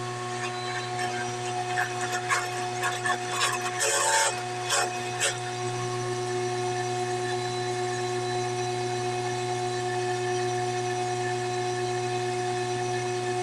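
A woodworking power tool's electric motor running at a steady hum. Knocks and scraping of wood being worked come over it during the first five seconds.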